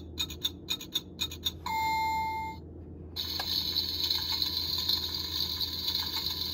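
Electronic sound effects from a Fisher-Price Loving Family toy kitchen stove, set off by its push button: quick ticking at about five a second, a single ding about one and a half seconds in, then a longer hissing effect from about three seconds in until near the end.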